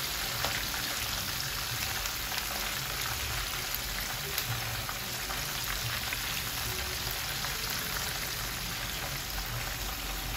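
Croaker fish pieces deep-frying in hot oil: a steady sizzle with small crackles scattered through it.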